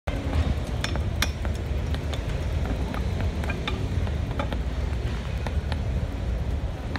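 Irregular sharp clinks and taps of stone paving setts being set and knocked into place by hand, over a steady low rumble.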